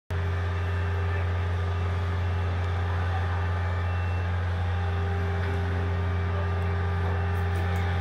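Heavy construction machinery engine running steadily, a low drone that does not change, with a few faint short high tones over it.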